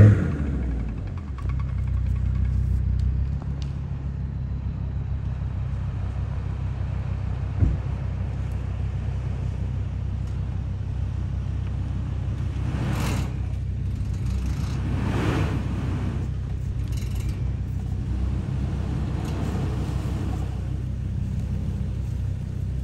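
Jeep Grand Cherokee's 4.0 straight-six running steadily at low revs as the vehicle crawls along a snowy off-road track. There is a single knock about eight seconds in and two brief rushing noises a little past the midpoint.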